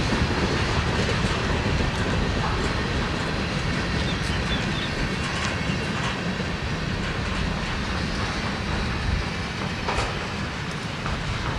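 Freight train cars rolling past with a steady rumble, wheels clacking over rail joints at irregular intervals.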